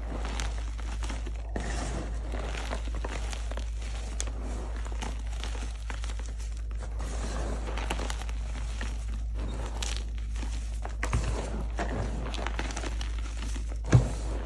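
Hands squeezing and crumbling soft gym chalk coated in corn starch and holi powder: a continuous soft crunching and crumbling with many small crackles, and a sharp louder thump near the end.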